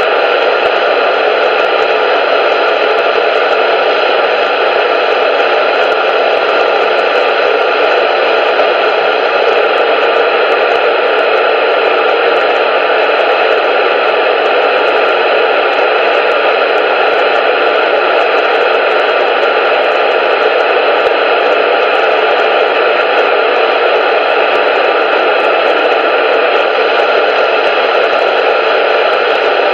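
Loud, steady static hiss with no change and no speech in it, cut off below the low end as through a radio or phone channel.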